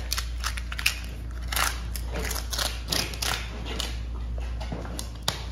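Long knife cutting along the backbone of a bluefin tuna: a run of short crackling, scraping strokes as the blade works through flesh and against bone, over a steady low hum.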